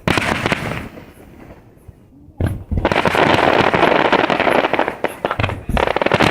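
Aerial fireworks going off: a boom about two and a half seconds in, then a dense, steady crackling of many small bursts, with another boom near the end.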